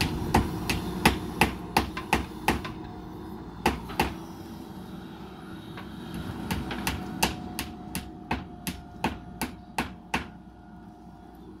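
Sharp, ringing knocks in quick runs of about three a second, with a pause of a couple of seconds in the middle, over the steady running of a JCB 3DX backhoe loader's diesel engine.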